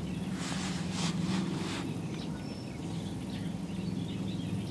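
Outdoor ambience: a steady low hum with scattered faint bird chirps, and a brief rustling noise about half a second to two seconds in.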